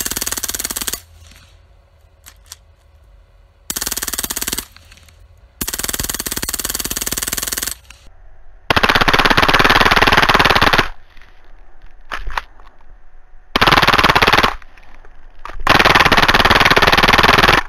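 Full-auto .22 LR machine guns firing long bursts of rapid fire: about six bursts of one to two seconds each, separated by short pauses. The later bursts are louder, and a few faint single cracks fall in some of the gaps.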